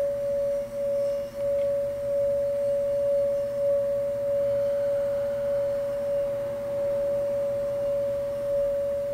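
Hand-held metal singing bowl sung by circling a mallet around its rim: one steady ringing tone, held without dying away, wavering gently in loudness.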